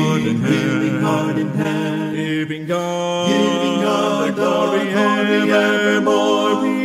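Unaccompanied voices singing a hymn in harmony, holding long chords that shift to a new chord about two and a half seconds in.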